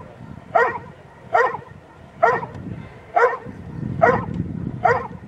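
Belgian Shepherd (Malinois) barking steadily at a helper in the blind, six sharp barks at an even pace of about one a second. This is the bark-and-hold of protection work: the dog guards the helper with barking rather than biting.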